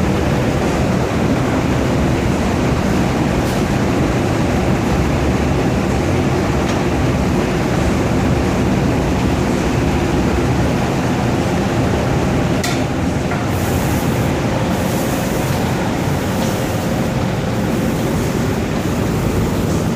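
Steady machine noise of an automatic cabinet-door spray-painting line running, its roller conveyor, motors and fans going without a break, with a couple of faint clicks.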